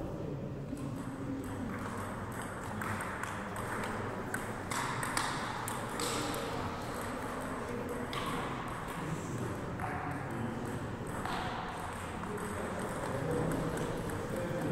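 Table tennis ball clicking repeatedly off the bats and the table during rallies.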